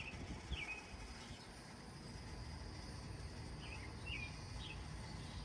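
Quiet outdoor ambience: a bird gives short, falling chirps, a couple near the start and a quick cluster of three about four seconds in, over a faint steady insect drone. A low rumble dies away in the first half second.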